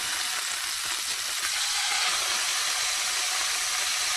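Food sizzling and frying in hot oil: a steady, even hiss.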